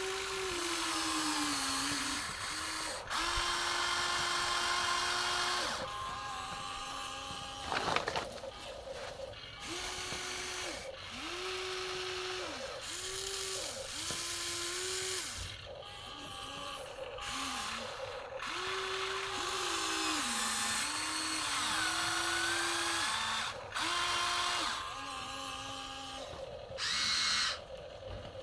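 Electric motors of a Huina 1953 remote-control excavator whining in short runs of about a second, starting and stopping as the arm and bucket are worked, the pitch sagging now and then under load. A sharp knock about eight seconds in.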